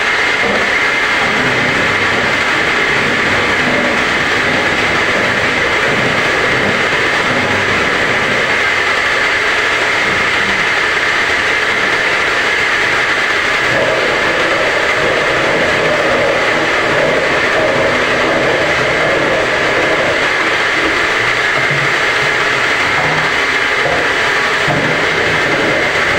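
Home-assembled round gallon bottle washing machine running steadily, its motor giving a constant high whine over an uneven low rumble.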